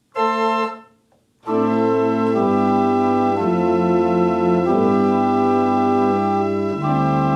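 Church pipe organ sounding through the open diapason and salicional stops, played over MIDI from a small keyboard controller. A short chord comes just after the start, then from about a second and a half in a slow run of held chords with bass notes, changing about once a second. The pipes are a bit out of tune.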